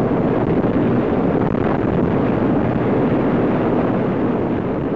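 Loud, steady rushing noise of an RAF search-and-rescue helicopter close by, with wind buffeting the microphone.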